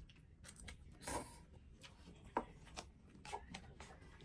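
Faint scattered clicks and light rustling, with a brief rustle about a second in and a sharper click about two and a half seconds in.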